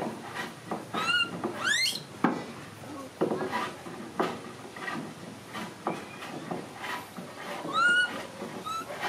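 Baby macaque giving short, high, squeaky calls that rise and fall, a few times, over the knocking and clatter of a plastic toy dump truck being pushed across a wooden table.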